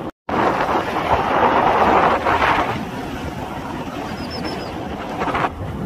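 Wind rushing over the microphone of a moving vehicle, mixed with its engine and road noise. The sound cuts out for a moment just at the start, and the wind eases a little near the end.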